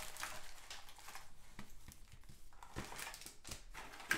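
Foil-wrapped trading-card packs and their cardboard box being handled: irregular light taps, clicks and soft rustling as the packs are taken out of the open box.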